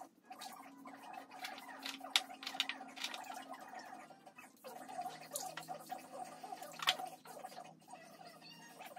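Feathers being pulled by hand from a chicken: a run of short, irregular ripping clicks, a few louder ones about two and seven seconds in, over a faint steady hum.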